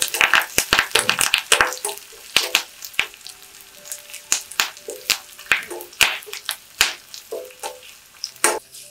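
Shallots, curry leaves and dried red chillies frying with mustard seeds in hot coconut oil in a small pan, crackling and popping as a steel spoon stirs them. The pops come thickly for the first couple of seconds and thin out after. This is the tempering being fried until the shallots brown and the curry leaves crisp.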